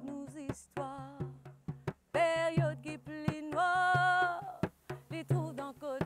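A woman singing a Sega song, holding some long notes, while she strikes a ravanne, the large hand-played Mauritian frame drum, in a steady run of beats.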